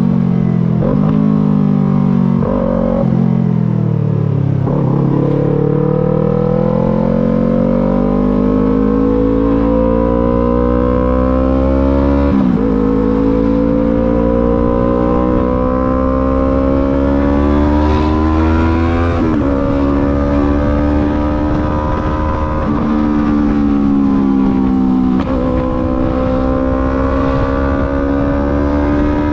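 Yamaha MT-03 motorcycle engine on the move. Its pitch drops over the first few seconds, then climbs steadily with short breaks where gears change, and settles to a fairly even cruise with small dips near the end.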